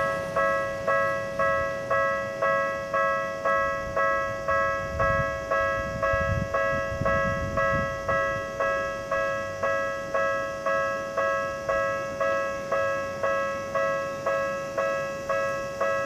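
Japanese railway level-crossing warning bell ringing: an electronic clang of several fixed tones, struck a little under twice a second with each stroke fading quickly. It sounds while the lights flash and the barriers are down, warning that a train is coming.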